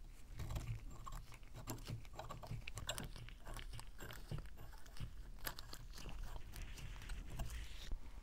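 Gritty crunching, scraping and irregular clicking of rusted metal parts being handled: the crank handle's rusty threaded rod and crank arm of an antique hand-cranked meat grinder. A rougher, longer rubbing scrape comes near the end.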